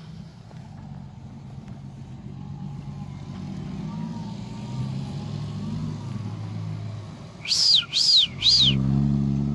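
Nissan Patrol 4x4's engine running as it drives across the grass, getting gradually louder, with a heavier steady engine note near the end. Three short, loud, shrill whistle-like calls, each rising and falling in pitch, come about three-quarters of the way in.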